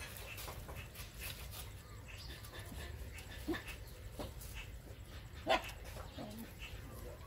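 Young puppies giving a few short whimpers, with one louder yelp about five seconds in, as they jostle under their mother to nurse.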